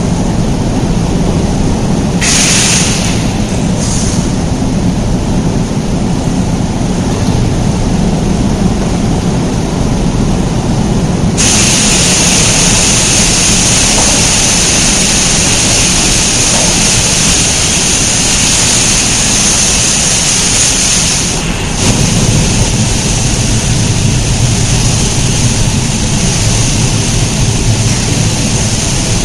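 High-pressure washer wands spraying water onto a semi truck: a loud hissing spray that comes in two short spurts near the start, then runs steadily from about 11 seconds in until about 21 seconds. Under it a steady low rumble of machinery continues throughout.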